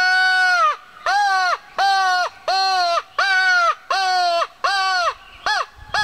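Crow call blown in a run of caws: a long caw ending shortly in, then six caws of about half a second, each dropping in pitch at its end, and shorter, quicker caws near the end. It imitates crows carrying on, the racket crows make when they gang up on a predator such as an owl, hawk or fox.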